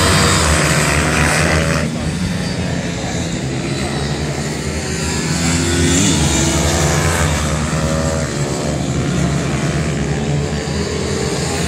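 Pit bike engines racing, their pitch rising and falling as they rev.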